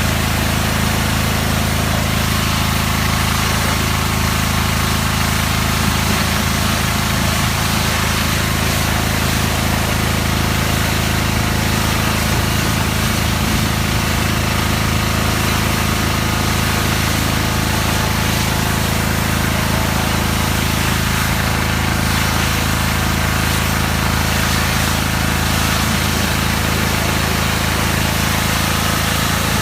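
Kärcher HD 1050 DE pressure washer's diesel engine running steadily under load, with the hiss of the high-pressure water jet spraying over it.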